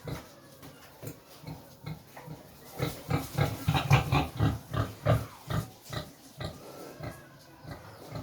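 A domestic pig grunting contentedly: a run of short, low grunts, about two to three a second, coming thickest and loudest in the middle stretch.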